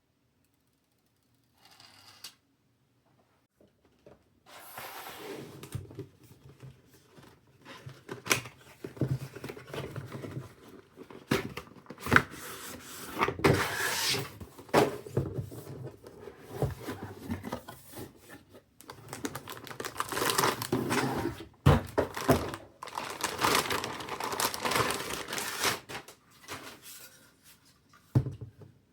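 Hands handling PC parts: irregular clicks and knocks mixed with rustling and crinkling, coming in bursts with short pauses between them.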